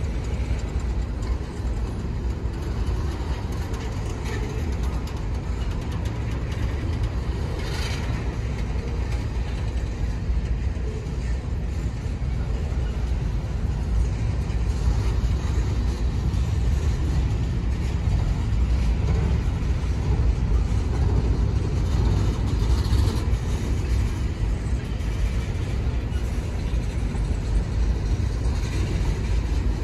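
Freight train cars (covered hoppers and boxcars) rolling past on the track: a steady heavy rumble of wheels on rail, with a few brief higher-pitched noises over it.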